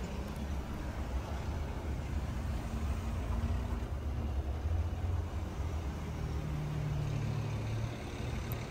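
Steady low rumble of a vehicle engine running at idle, with a low hum that swells about six seconds in.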